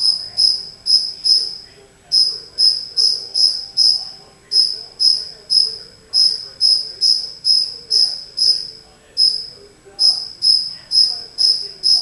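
A cricket chirping: short, high-pitched chirps repeated about two to three times a second, in runs broken by brief pauses.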